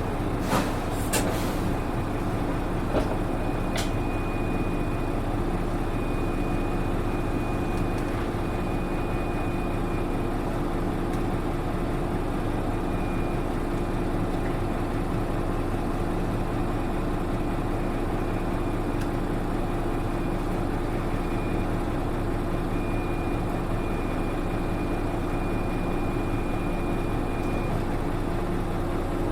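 A PKG-RA274MAN city bus idling at a stop with a steady low drone. Short air hisses come in the first couple of seconds, and a thin high whistle comes and goes over the engine.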